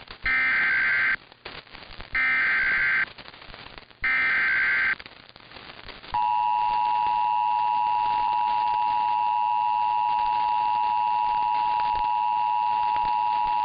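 Emergency Alert System header: three short bursts of screeching digital data about a second apart. These are followed about six seconds in by the steady two-tone EAS attention signal, which marks the start of a new alert.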